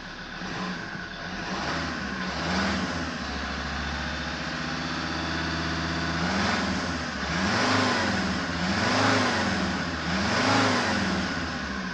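Ford Ranger's 3.2 L five-cylinder turbo-diesel running, heard from inside the cab: it idles steadily, then is revved three times in a row in the second half, the pitch rising and falling each time.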